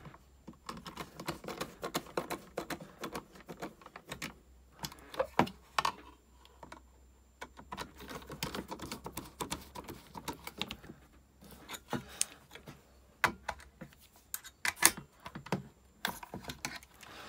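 Hand screwdriver tightening screws into the plastic back of a Concept2 PM3 rowing monitor: irregular small clicks and scrapes of the driver and the plastic case being handled, with a few sharper knocks.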